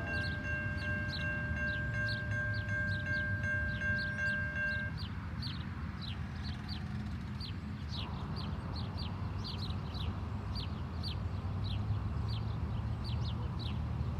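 Railroad grade-crossing bell ringing steadily, then stopping about five seconds in as the crossing clears. Short high chirping, likely birds, repeats a few times a second throughout, over a low rumble.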